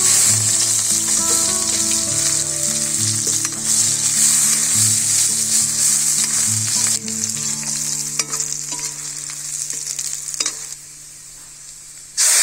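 Sliced onions sizzling hard in hot oil in a large iron karahi, stirred and scraped with a metal spatula. The sizzle drops low for about the last second and a half.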